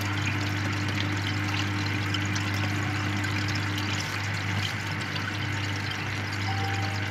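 Aquarium air pump humming steadily while an airstone fizzes and bubbles in the tank. A faint higher hum drops out about four seconds in.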